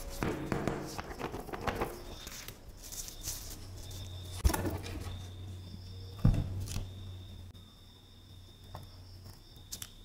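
Sticker paper being peeled and handled, with crackling rustle for the first two seconds or so. Two sharp knocks follow, about two seconds apart, over a steady low hum.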